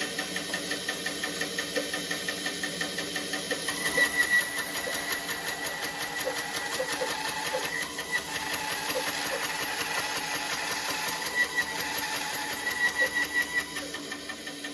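A small power tool running with a fast, even rhythm of repeated strokes, louder for a moment about four seconds in and again near the end.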